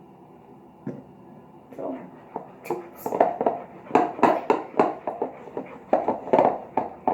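Fork stirring and squishing a bowl of glue-and-shaving-cream slime: irregular wet squelches and clicks that start about two seconds in and come thick and fast, some quite loud.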